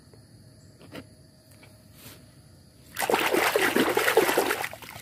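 A hand swishing a small toy car about in a plastic tub of water: loud splashing and sloshing starts about three seconds in and dies away under two seconds later. Before it, a few faint clicks as toy cars are picked up off a plastic surface.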